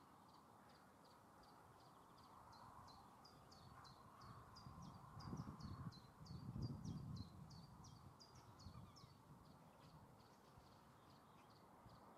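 Faint outdoor quiet with a small bird repeating a short, high, down-slurred chirp about three times a second. A soft low rumble rises and fades about five to seven seconds in.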